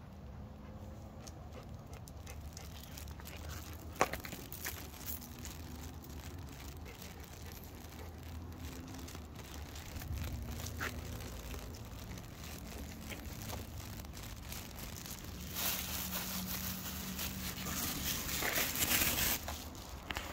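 Rustling and crinkling handling noise from a hand-held phone on a walk, over a low rumble, with scattered light clicks. A louder stretch of rustling comes about three-quarters of the way through.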